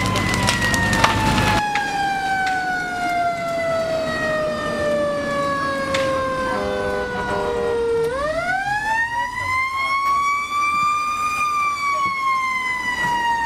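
Fire engine siren wailing: a slow tone that falls steadily for about eight seconds, sweeps quickly back up, then begins to fall again. Under it for the first second and a half, the crackle and rumble of a burning building cuts off abruptly.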